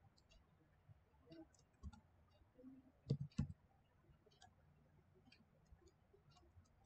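Sparse computer keyboard key clicks as a typed command line is edited, with two louder clicks a little past halfway and faint scattered taps around them.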